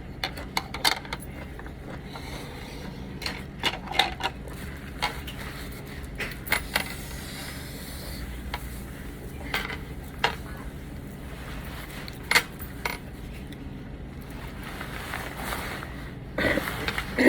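Dishes and cutlery clinking, with short sharp clinks every second or so over steady low background noise, and a louder cluster of knocks near the end.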